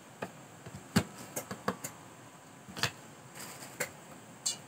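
Kitchen knife chopping garlic cloves on a wooden cutting board: scattered, irregular sharp knocks as the blade strikes the board.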